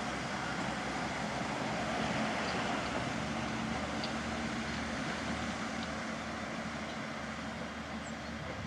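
Hungarian Bzmot diesel railcar pulling away down the line, its engine and running gear making a steady low drone that slowly fades as it goes.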